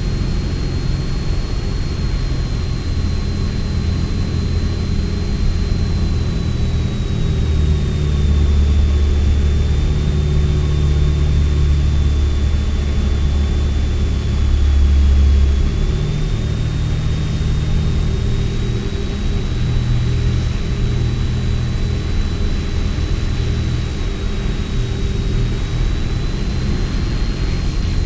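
Single-engine piston engine and propeller of a Piper Arrow droning steadily in the cabin on final approach, louder for several seconds in the middle, with a thin high whine over it.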